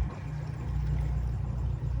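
A boat's motor running steadily at low revs with a low rumble, a brief knock right at the start.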